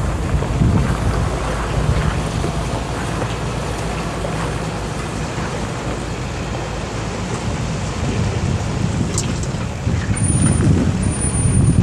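International DT466 7.6-litre inline-six turbo diesel running steadily, with wind rumbling on the microphone and growing louder near the end.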